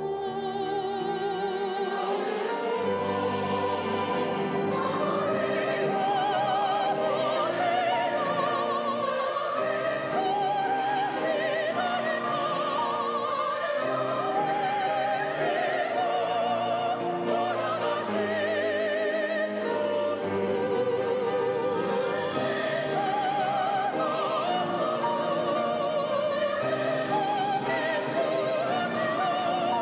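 Church choir and orchestra performing a sacred anthem, the voices sung with strong vibrato over sustained orchestral chords.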